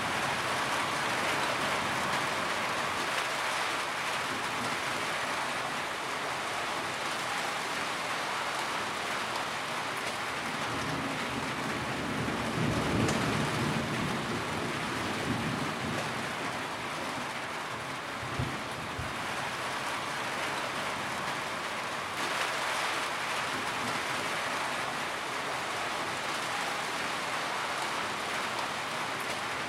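Steady heavy rain drumming on a tin roof. A low rumble swells and fades about halfway through, and there is a single short knock a few seconds later.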